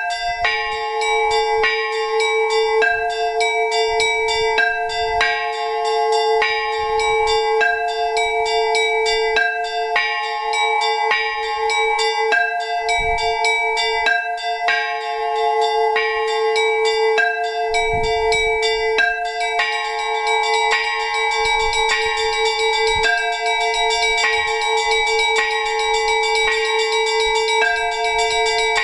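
Orthodox monastery bells ringing together in a continuous peal (trezvon): small bells struck rapidly in a repeating pattern over a steadily ringing lower bell, with occasional deeper strikes. This is the bell-ringing that announces a memorial service.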